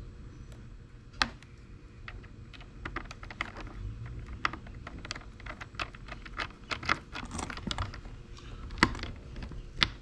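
Irregular small clicks and ticks of a precision screwdriver turning the terminal screws on a wired switch, along with handling of the plastic panel. The sharpest clicks come about a second in and twice near the end.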